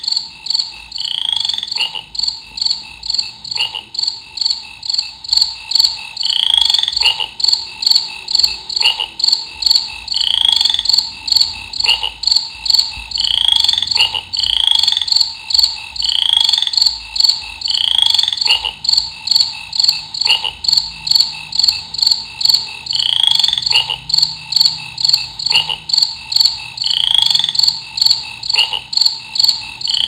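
Recorded nature sound of crickets chirping in a fast, even pulse, with a short rising frog-like call every second or two, played by a desktop aquarium's built-in nature-sound mode.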